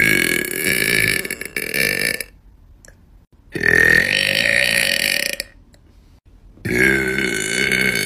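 A woman burping three times, each a long deep burp lasting about two seconds, with short pauses between.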